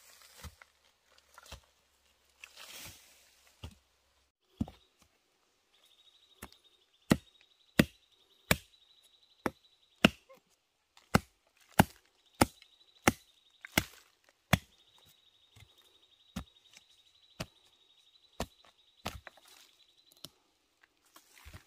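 A blade chopping in sharp, evenly paced strokes, a bit over one a second, loudest through the middle. A steady high buzz runs behind much of it.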